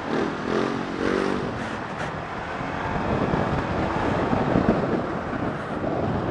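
Honda ADV150 scooter engine running while riding at low speed, its pitch rising and falling twice in the first second and a half, then a steadier rumble of engine, wind and road noise.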